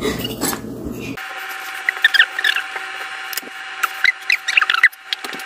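Short high squeaks, several a second, from a utensil rubbing against a ceramic plate and bread as toothpaste is spread, over a faint steady hum.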